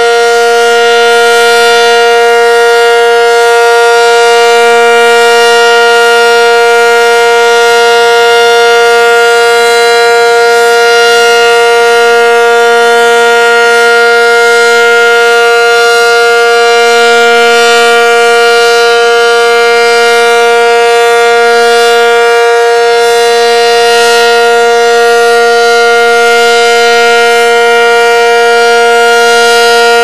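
ACA Cyclone 125 outdoor warning siren wailing loudly at a steady pitch, sounding for a routine siren test.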